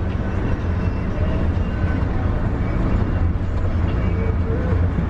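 A vehicle driving on the road: a steady, deep rumble of engine and road noise that cuts off suddenly at the end.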